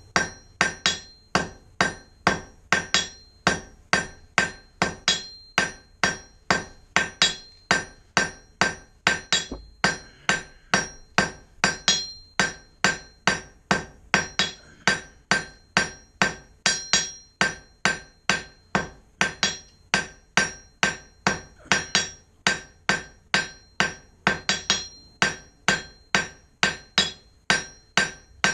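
Hand hammer striking a hot 1/4-inch square steel bar on an anvil, about two blows a second, each blow ringing, while drawing out a square taper.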